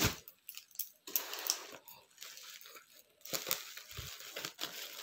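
Black plastic and bubble-wrap parcel wrapping crinkling and crackling in irregular clicks as it is handled and cut open with scissors, with a brief lull about three seconds in.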